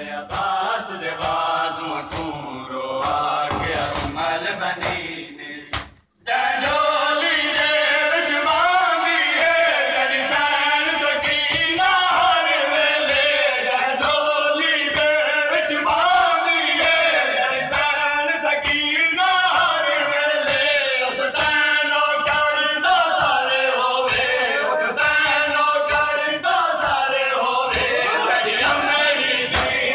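A group of men chanting a Shia mourning lament (noha) in unison while beating their chests, with regular hand slaps on chests under the voices. The sound drops out briefly about six seconds in, then the chanting comes back louder.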